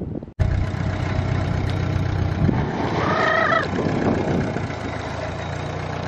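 Heavy-equipment diesel engine running steadily, with a brief high-pitched call about three seconds in.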